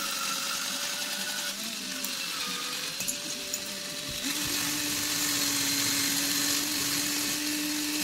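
A 12-volt cordless drill fitted with a polishing mop, running with a steady whine. About four seconds in, the whine drops to a lower steady pitch and a louder hiss joins it.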